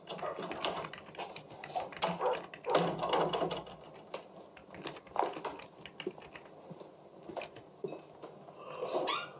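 Irregular light knocks and clicks of someone moving about a kitchen and handling things, like footsteps and a bottle or crockery being picked up and set down.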